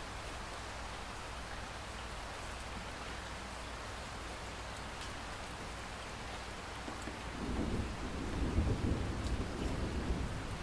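Steady rain falling, with scattered drop ticks; about seven seconds in, a rumble of thunder rises and rolls on to the end.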